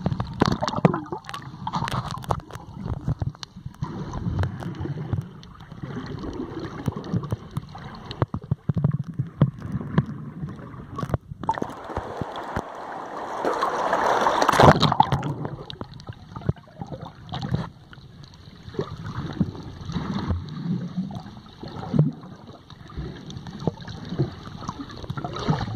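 Underwater water noise heard through a waterproof action-camera housing: gurgling and sloshing with many short knocks. About twelve seconds in, as the camera reaches the waterline, it swells for a few seconds into a louder rush of water.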